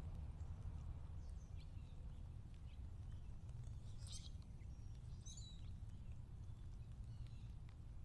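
Faint, scattered chirps and short calls of songbirds, the clearest about four seconds in and again a little after five, over a low steady rumble.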